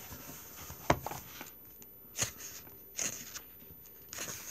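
A few soft rustles and sharp taps of a paperback graphic novel being handled, its pages shifted or turned, with one tap about a second in the loudest.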